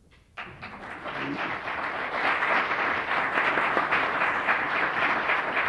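Audience applauding. It starts suddenly just after a moment of near silence and swells over the next couple of seconds into steady clapping.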